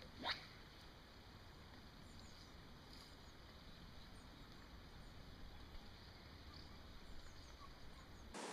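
Near silence: faint outdoor ambience with a low rumble and scattered faint high bird chirps, and a short sweeping sound near the start.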